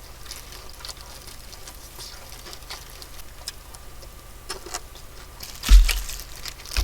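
Eating and food-handling sounds at a table: faint scattered clicks and rustles from handling fried chicken, then a loud thump about six seconds in and a smaller one at the end.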